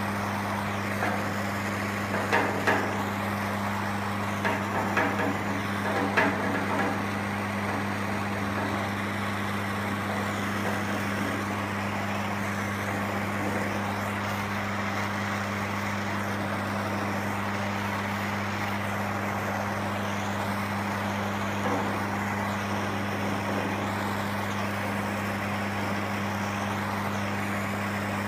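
A few light knocks and scrapes in the first seven seconds, from a paddle working body lead on a car panel, over a constant low hum and even hiss.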